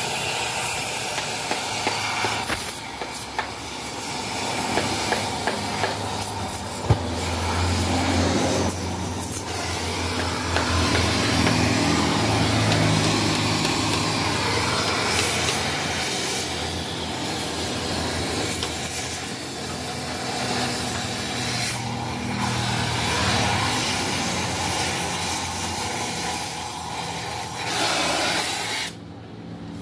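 Steady hissing metalworking noise on a Yamaha Mio scooter muffler under modification, cutting off sharply near the end.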